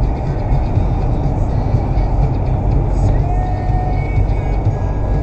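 Steady road and engine rumble from a car driving through a long road tunnel, heard from inside the cabin. A brief faint tone sounds about three seconds in.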